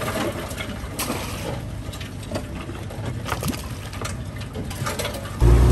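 Crawfish rattling and clicking as a mesh trap is shaken out into an aluminum sorting tray, over the low hum of the boat's idling motor. Near the end, the boat motor suddenly revs up loudly and keeps running.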